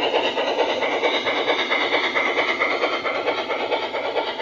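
LGB Class IVk Meyer G-scale model steam locomotive running along garden-railway track: a fast, steady clatter of its wheels and drive on the rails, with a high whine that swells in the middle.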